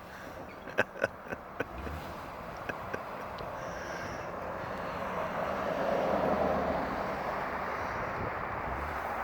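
A car driving on the road, its tyre and engine noise swelling to a peak about six seconds in and then easing off slightly. A few sharp clicks come in the first two seconds.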